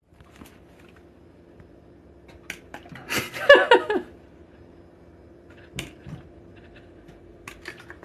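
A cat meows once, briefly, about three seconds in, its pitch bending as it goes, with a few light clicks and taps around it.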